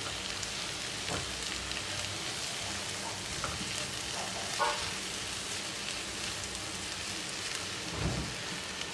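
Vegetables sizzling steadily in a nonstick frying pan while a silicone spatula stirs them, with a few soft scrapes and taps of the spatula against the pan.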